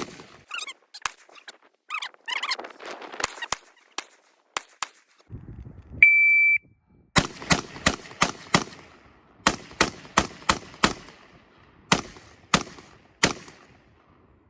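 A shot timer's start beep, one steady tone lasting about half a second, followed by a string of about a dozen gunshots fired in quick groups. Clattering handling noise comes before the beep.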